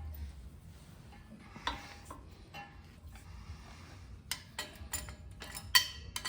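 Scattered metallic clinks and knocks of hand tools and parts being handled while U-joints are worked out of axle yokes. The clinks come more often toward the end, and the sharpest one falls near the end.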